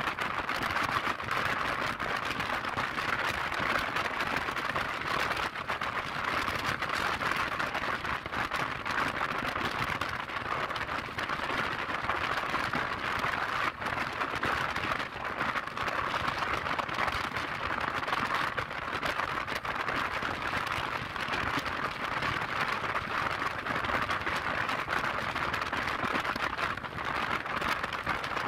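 Steady rushing wind noise on the microphone of a scooter riding at road speed. There is no distinct engine note and no separate event.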